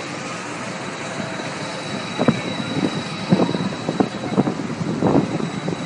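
Giant pendulum ride with its spinning gondola swinging through a high arc: a steady rushing noise, joined about two seconds in by a run of short sharp sounds, several a second.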